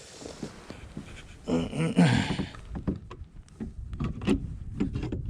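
Scattered knocks and taps on a plastic kayak as a small just-caught fish is handled and unhooked, after a brief rushing noise in the first two seconds.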